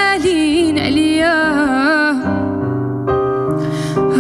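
A woman singing a slow, mournful Moroccan song in Darija, her long notes wavering with vibrato, over acoustic guitar accompaniment. About two seconds in her voice drops out and the accompaniment carries on with held notes alone, until she comes back in at the very end.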